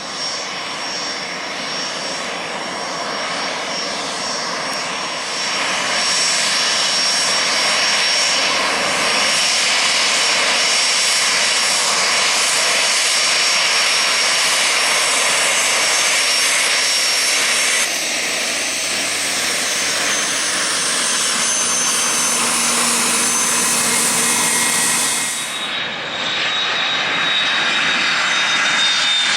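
Business jet engines: the Cessna CitationJet's turbofans and then the Bombardier Challenger 350's, a steady jet noise with a thin high whine over it. The sound changes abruptly about 18 s in, and about 26 s in it cuts sharply to another jet whose whine slides slowly down.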